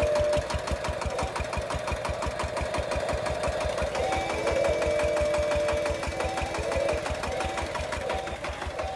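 Small electric motors and gearing of a homemade model tractor and drilling rig running with a rapid, even clatter. A whine comes and goes over it.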